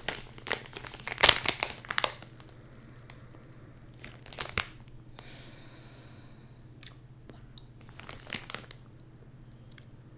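Clear zip-top plastic bag crinkling and crackling as it is handled and opened. The loudest bursts come in the first two seconds, with shorter rustles about halfway through and again near the end.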